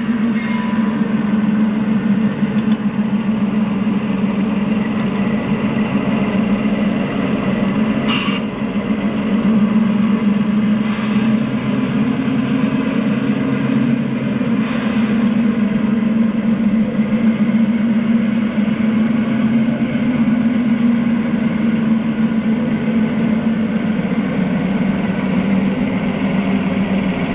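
Small engine of a ride-on miniature railroad locomotive running steadily with an even low hum as the train moves along the track.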